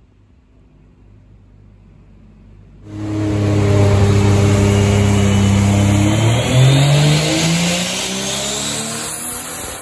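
Turbocharged Toyota 1JZ-GTE inline-six in a Lexus SC300 making a pull on a hub dyno at 16 psi of boost. After about three seconds of low running, it comes in loud and steady under load. From about six and a half seconds the revs climb, with a high whine rising alongside.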